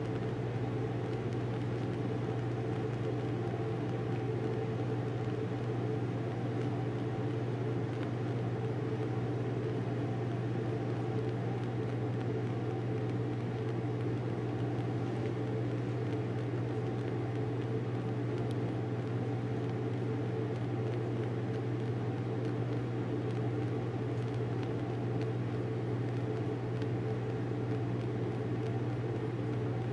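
Bunsen burner flame burning steadily under a porcelain crucible: a continuous low hum with an even rush of gas flame over it, unchanging throughout.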